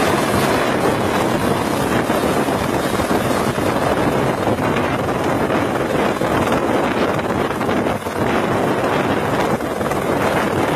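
Helicopter hovering low and close, its rotor and engine making a steady loud rushing noise, with wind from the rotor wash buffeting the microphone.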